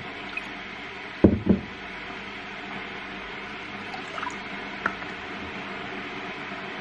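Steady rushing hum of water heating toward the boil, with two sharp knocks a little over a second in and a few light clicks around four to five seconds, as a juice bottle and cups are handled on a stone counter.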